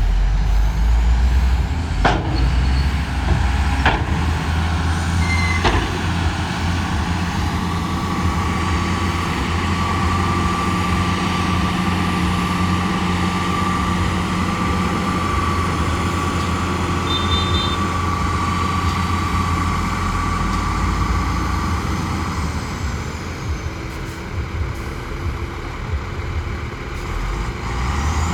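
Shantui bulldozer's diesel engine running steadily under work. There are three sharp metallic clanks in the first several seconds, and a steady high whine is held through the middle.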